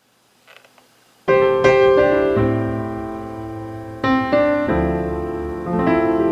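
Background piano music: after a second of near quiet, held chords begin, with new chords struck every second or so and each one fading slowly.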